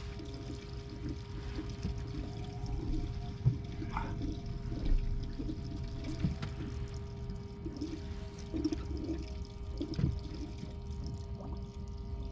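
Water pouring and sloshing over a steady low hum, with a few soft knocks.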